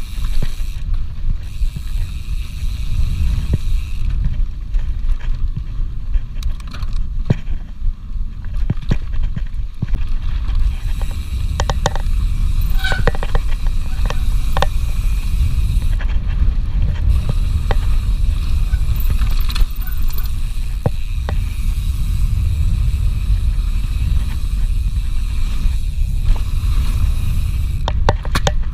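Mountain bike ridden down a dirt forest trail: a steady low wind rumble on the microphone with tyre noise, and bunches of sharp clicks and rattles from the bike over bumps.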